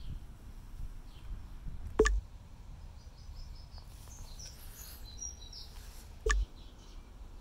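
Outdoor background noise with faint bird chirps, broken by two sharp knocks, one about two seconds in and one near the end.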